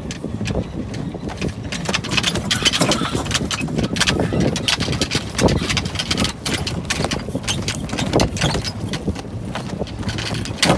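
Rapid, irregular clicking and knocking from a sailboat's deck gear, over wind rushing on the microphone and water noise.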